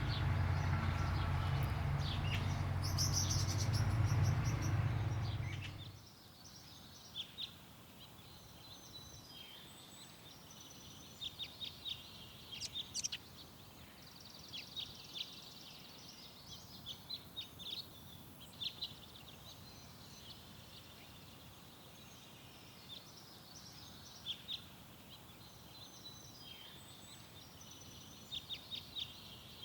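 Garden birds chirping in short runs of quick, high notes over a faint steady background hiss. For the first six seconds a loud, low, steady hum covers everything, then stops abruptly.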